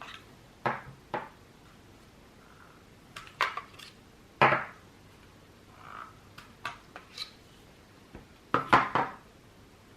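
Small clicks and knocks of batteries being handled in and out of a plastic video doorbell: about a dozen separate taps, the loudest about four and a half seconds in and a quick cluster of them near nine seconds.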